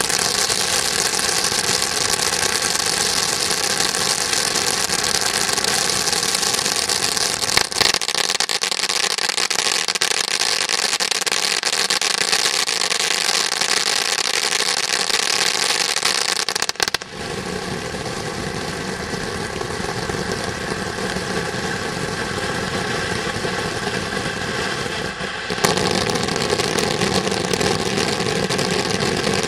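Ground display fountain firework burning: a loud, steady hissing spray of sparks. Its tone shifts abruptly about halfway through and again near the end as the fountain's effects change.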